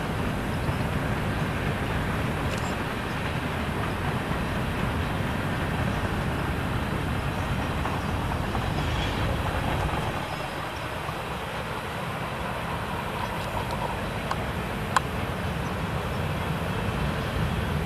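CP freight train of autorack cars rolling past, a steady rumble of wheels on the rails. There is a faint thin squeal a little past the middle and a single sharp click about fifteen seconds in.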